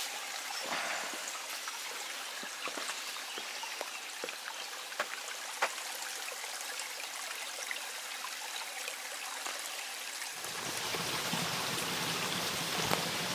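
Running water, a steady splashing hiss, with scattered light clicks of footsteps on the trail. About ten seconds in, the water grows fuller and louder.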